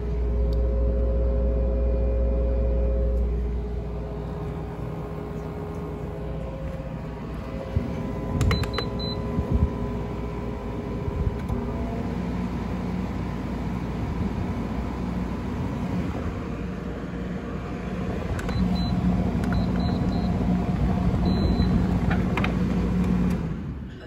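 Friedrich window air conditioner running with a steady fan and compressor hum, with a heavy low rumble for the first few seconds. About halfway through, the hum rises in pitch and grows stronger as the fan is set to a higher speed. A few short high control-panel beeps come a third of the way in and again near the end.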